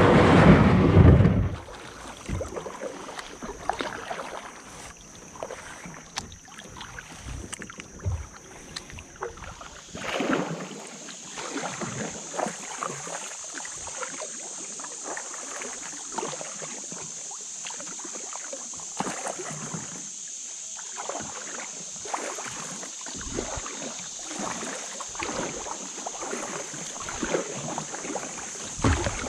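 Kayak paddle strokes splashing and dripping, and water lapping at the plastic hull of a small sit-in kayak on a shallow river, in an irregular run of small splashes. It opens with a loud low rumble that lasts about a second and a half.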